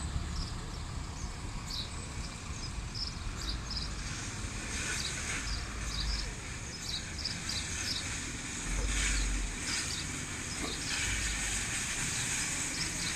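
Diesel buses running at a bus station: a single-decker bus drives across the station over a steady low engine and traffic rumble, with a hiss swelling twice. Small birds chirp again and again throughout.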